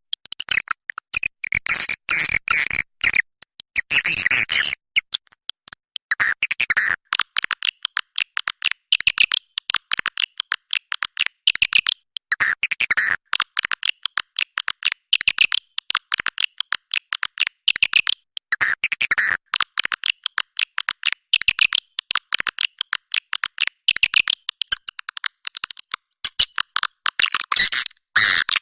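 Swiftlets twittering: fast, dense, chattering chirps in repeated phrases with brief pauses. This is a recorded swiftlet call of the kind used to lure the birds.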